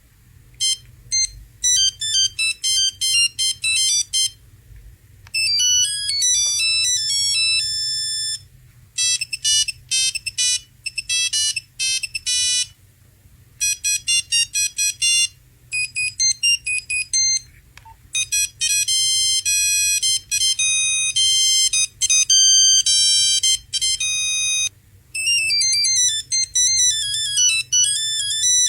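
Nokia mobile phone ringtones: several different electronic melodies of fast, high beeping notes, played one after another with short pauses between tunes.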